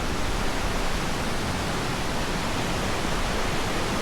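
Steady, loud rush of fast-flowing water from a mountain creek tumbling over rocks and cascades.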